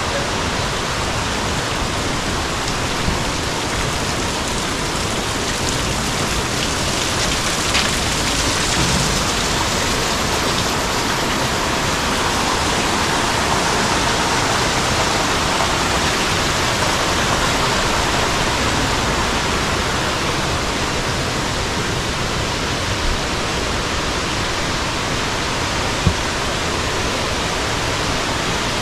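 Steady rush of a waterfall, water pouring and splashing without letup, with a couple of faint ticks.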